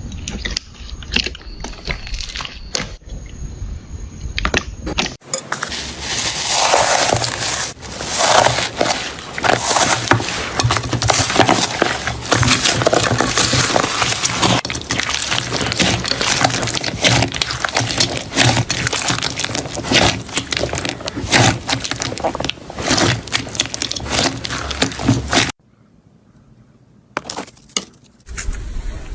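Slime being squeezed and worked by hand, giving dense, irregular crackling and popping. The sound changes abruptly about five seconds in and again near the end, where it drops to a brief quieter stretch before the crackling resumes.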